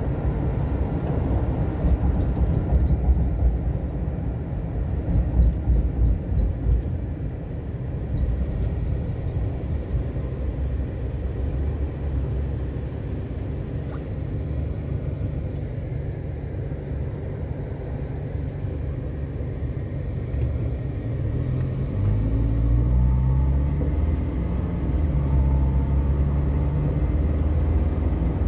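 Low rumble of a car driving through city traffic, heard from inside the vehicle. About three-quarters of the way through, the engine note rises as the car speeds up, then holds steady.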